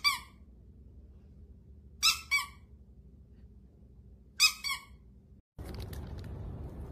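A squeaky dog toy squeezed three times, about two seconds apart, giving short high-pitched squeaks; the second and third are doubled, a squeak on the squeeze and another on the release. Near the end a steady background hiss takes over.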